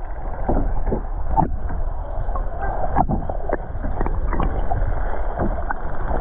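Muffled underwater sound of sea water swirling around a camera held beneath the surface, with scattered sharp clicks and knocks.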